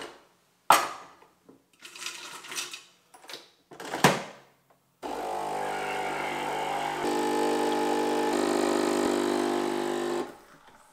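Capsule espresso machine's pump running as it brews coffee into a mug: a steady buzzing hum that starts about halfway through, steps up in pitch a couple of seconds later and cuts off abruptly near the end. A few short clicks and knocks come before it.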